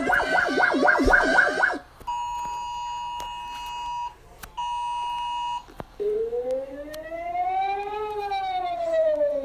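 A string of electronic emergency alert alarm tones. First a rapidly pulsing tone at about five pulses a second cuts off about two seconds in. Then a steady electronic tone is held for two seconds, breaks off and sounds again for a second, and from about six seconds in a siren-like tone rises and then falls in pitch.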